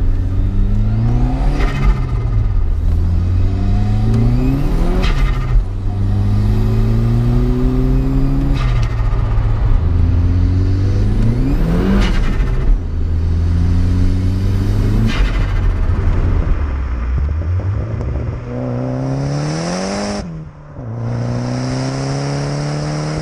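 Saab B204 2.0-litre turbo four-cylinder in a Vauxhall Astra accelerating hard through the gears, its pitch climbing and dropping sharply at each upshift about five times. From about three-quarters of the way in it is heard close to the tailpipe with wind rush, climbing and dropping once more.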